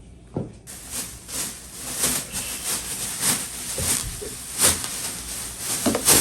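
Rustling and handling noise with a series of soft knocks and scuffs over a steady hiss, starting abruptly about half a second in.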